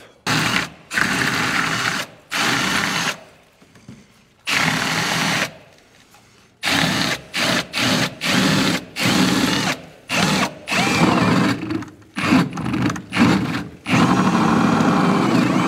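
Cordless drill boring a hole upward through wooden framing with a long bit. The drill runs in repeated stop-start runs, many of them short, then runs steadily near the end.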